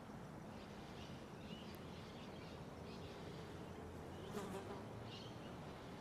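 Faint outdoor ambience: a low steady buzz with small birds chirping now and then, and one brief louder sound about four and a half seconds in.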